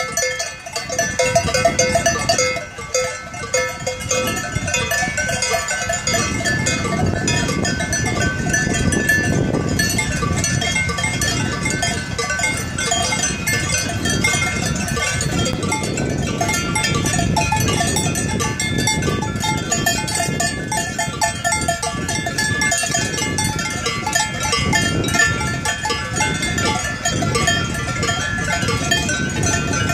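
Many cowbells ringing unevenly as a herd of cows walks along, the bells overlapping at different pitches. A steady rushing noise runs beneath them.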